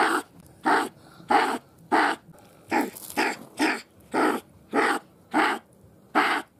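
A marten calling in a run of short, hoarse calls, evenly repeated about one every half to two-thirds of a second.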